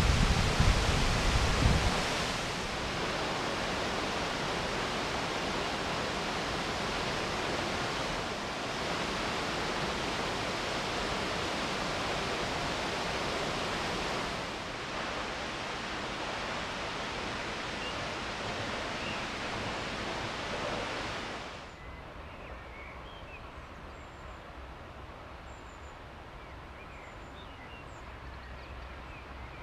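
Acquafraggia waterfall: a steady rush of falling water, with wind buffeting the microphone for the first two seconds. The rush grows fainter in two steps, the second and larger about three-quarters through, with faint high chirps over it near the end.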